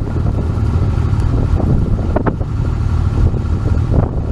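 Wind buffeting the microphone: a steady, loud low rumble with a few brief gusts.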